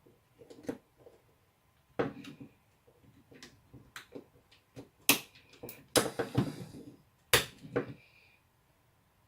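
Sharp plastic clicks, knocks and scrapes as an electric shaver's plastic housing is pried apart with a screwdriver, the loudest snaps a little after five, six and seven seconds in.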